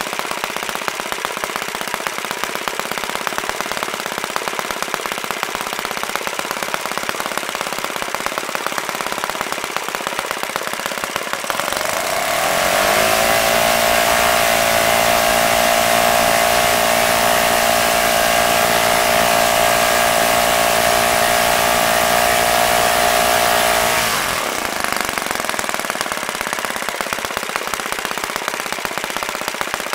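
OS FS-120 Surpass single-cylinder four-stroke glow engine turning a 15x8 propeller, running with a rapid popping exhaust. About twelve seconds in it is opened up and its pitch rises to a steady full-throttle note, held until it is throttled back near the end. It runs without bearing noise on fresh bearings.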